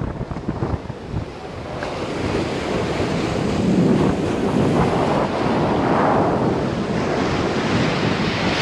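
Ocean surf breaking and washing up the beach, swelling about two seconds in, with wind rumbling on the microphone.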